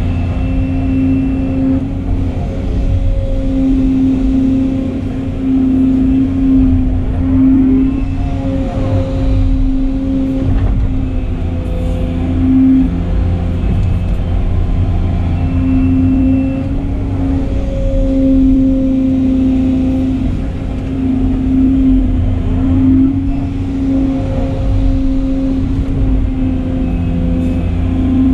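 Volvo excavator's diesel engine running steadily, heard from inside the cab, with a tone that swells and fades every couple of seconds as the operator works the boom and bucket to dig and dump sand.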